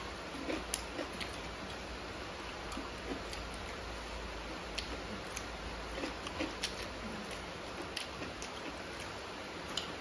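Close-miked eating sounds: chewing and mouth smacks with many small irregular clicks, from two people eating rice and curry by hand from steel plates, over a steady low background hiss.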